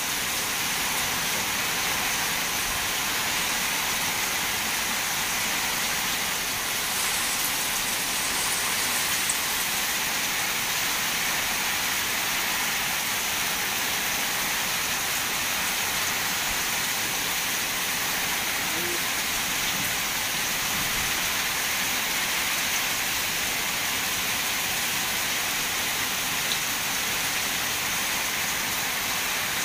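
Torrential rain pouring down onto a waterlogged field and the corrugated roof overhead, a steady, even hiss that does not let up.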